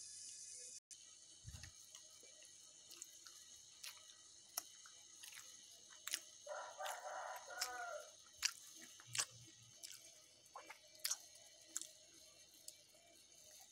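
A rooster crows once, about six and a half seconds in, lasting over a second. Scattered sharp clicks and taps run throughout.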